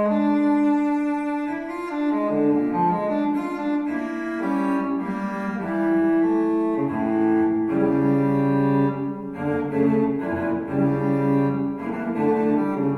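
Solo cello music, long bowed notes in a slow melody, played back through hi-fi loudspeakers; deeper notes join about seven seconds in.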